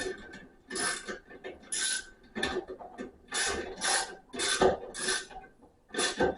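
Ratchet wrench worked back and forth on an engine bolt: a string of short rasping clicking strokes, about nine, with brief pauses between.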